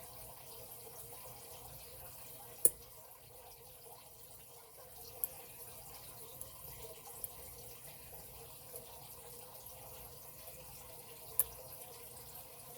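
Faint scattered clicks of a lock pick working the wafers of a padlock under tension, over a steady low hiss. The sharpest click comes about two and a half seconds in.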